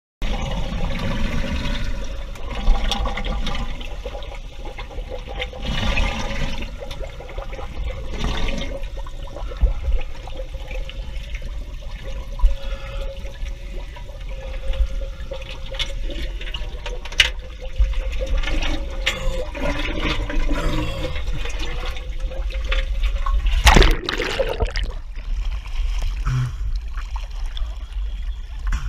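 Seawater sloshing and bubbling around an action camera held just under the surface, with a faint steady hum through most of it. Near the end there is a loud splash as the camera breaks the surface.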